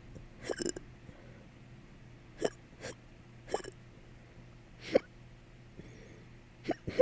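A person hiccuping repeatedly: about six short, sharp hiccups at irregular gaps of one to two seconds.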